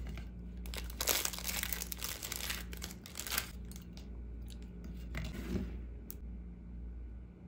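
Crinkly plastic rice-cake packaging being handled as puffed rice cakes are pulled out of it, rustling in bursts with a few light taps, dying away after about six seconds.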